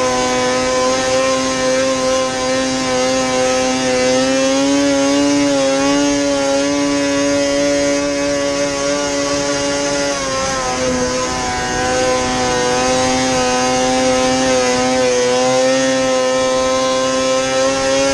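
Modified 2006 Ski-Doo Rev 600 snowmobile's two-stroke twin engine running hard at a steady high pitch while the sled skims across open water. The pitch dips briefly about ten seconds in and climbs back.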